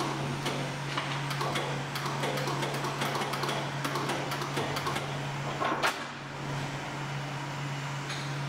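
Steady low hum of a hydraulic pump running while the Zacklift FIFTHWHEELER's hydraulic valves are worked, with light metal clicks throughout and a louder clank about six seconds in.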